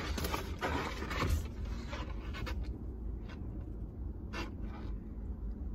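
Large glossy paper prints rustling and crinkling as they are handled and turned over, busiest in the first couple of seconds and then dying down to a few scattered crackles, over a steady low hum.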